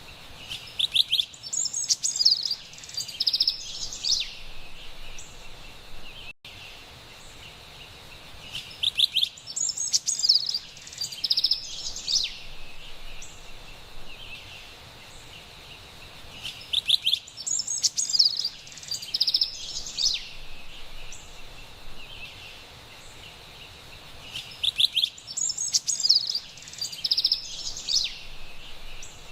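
Carolina wren singing: a loud burst of fast, bright, repeated notes about every eight seconds, four times over, each phrase much alike, over a steady high hiss of forest background.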